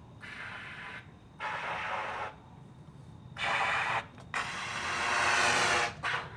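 Trumpet played with extended technique: unpitched air blown through the horn in four hissing breaths, each under a second except the last, which is the longest and loudest at about a second and a half. A faint low rumble lies steadily underneath.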